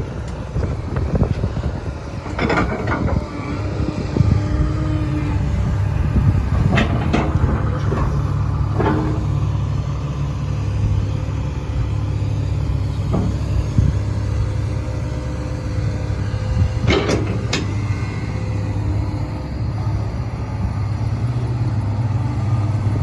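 Komatsu PC300LC-8 hydraulic excavator working: its six-cylinder diesel engine runs steadily under load. Sharp metal clanks come from the working gear, several in the first nine seconds and a pair about three-quarters of the way through.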